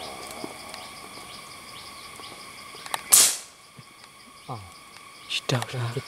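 A single shot from a scoped hunting rifle about three seconds in: a short sharp report lasting a fraction of a second, over a steady drone of insects.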